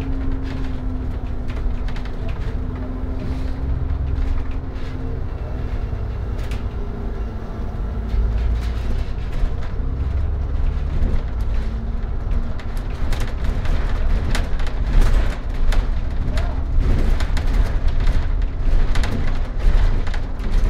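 Ride noise inside a moving double-decker bus: a steady low engine and road rumble with an even engine hum. From about halfway on, frequent knocks and rattles join it.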